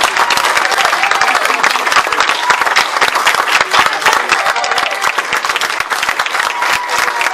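Audience applauding at the end of a play: dense, steady clapping from many hands.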